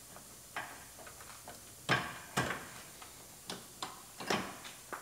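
Tools and metal parts being handled in a car's engine bay: irregular light clicks and knocks, about seven of them, the loudest a couple of seconds in.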